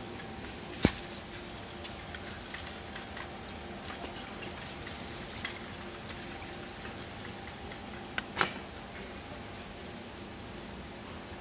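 Supermarket ambience: a steady background hum with faint steady tones and scattered small clicks and rattles. Two sharp knocks stand out, one about a second in and one near eight seconds.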